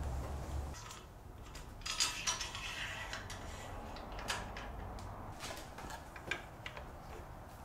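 Light metallic clicks and clinks of aluminium frame-jig parts being handled and fitted onto the jig's rail, with a short scraping rustle about two seconds in.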